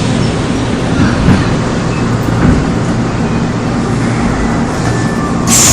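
Running noise of a Seoul Metro Line 2 old 2000-series resistor-controlled electric train, heard on board: a steady rumble of wheels on the track with a few knocks from rail joints. Near the end a sudden loud hiss with a high steady tone sets in.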